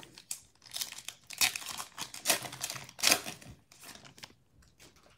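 Foil wrapper of a Donruss Optic basketball card pack being torn open and crinkled by hand: a run of sharp crackles, loudest in the middle, thinning out near the end.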